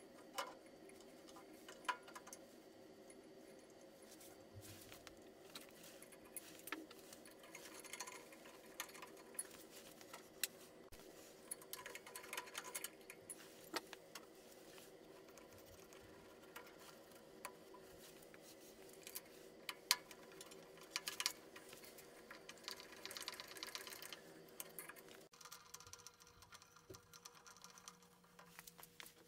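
Faint scattered clicks and light metallic rattles of small parts and fasteners as a Briggs & Stratton updraft carburetor and its air cleaner are fitted back onto a small engine by hand. A faint steady hum runs underneath and drops out about 25 seconds in.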